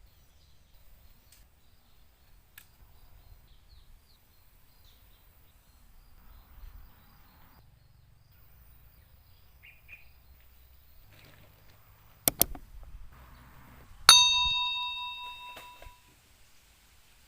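A quiet background, then a pair of sharp knocks, then about two seconds later a single bright ding struck once that rings on in several clear tones and fades over about two seconds.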